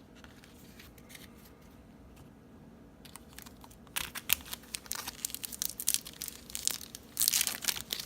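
Baseball card pack wrapper being torn open and crinkled, starting about four seconds in and loudest near the end.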